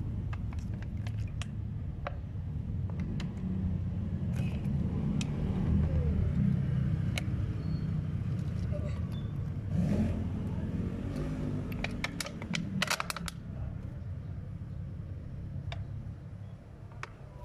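Plastic dye bottles crackling and clicking as they are handled and squeezed, over a steady low rumble.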